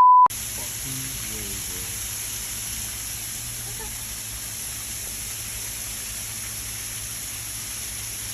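Heavy rain falling in a steady, even hiss. It is preceded by the tail of a high censor beep at the very start, and a faint voice is under it about a second in.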